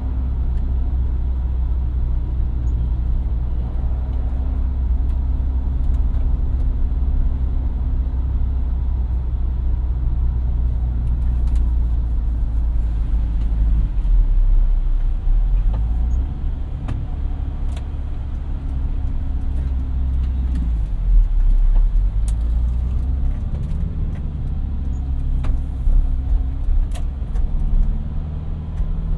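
VW T3 van driving, heard from the driver's seat: a steady low engine rumble with road noise, the engine note shifting several times as speed changes.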